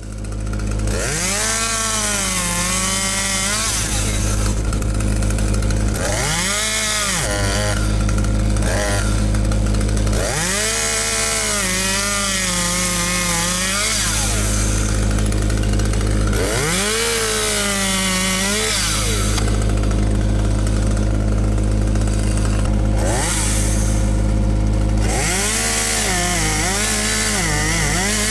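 Petrol chainsaw repeatedly revved up to full throttle and let back down, about five times, its pitch sagging slightly while it cuts through logs. A steady low engine drone runs underneath.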